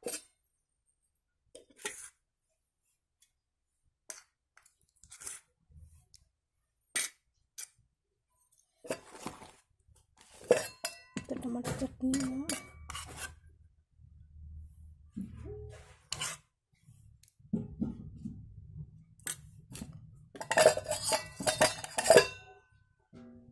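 Stainless steel bowls and utensils clinking and knocking now and then, with a louder burst of clattering near the end.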